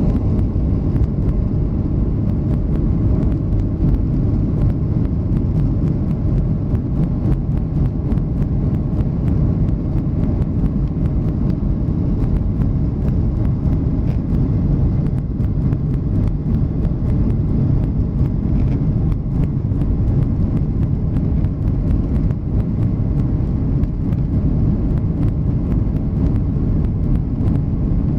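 Cabin noise inside a Boeing 737-800 taxiing: its CFM56 engines running at low power and the airframe rolling on the ground make a steady low rumble, with faint light clicks throughout.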